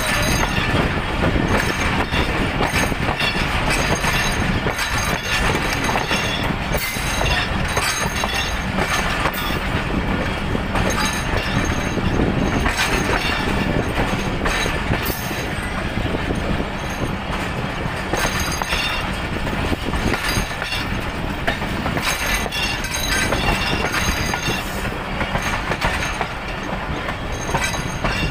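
Pakistan Railways Millat Express passenger coach rolling along a station platform, heard from the coach's window: steady wheel-on-rail running noise with rattling and clicks of the wheels over the rail joints.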